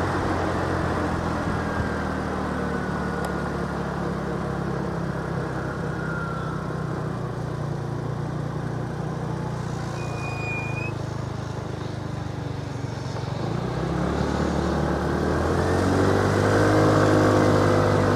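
Vehicle engine and road noise while driving, steady for most of the time. About fourteen seconds in, the engine note rises.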